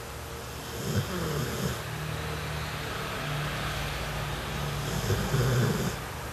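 A sleeping puppy snoring: a long, drawn-out snore with a wavering pitch, loudest near the end.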